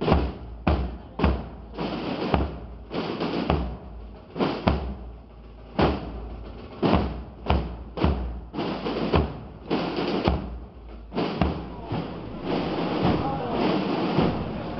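Procession drums struck by marching penitents, heavy beats about once or twice a second in a slow march. About eleven seconds in, the drumming gives way to the voices of a crowd.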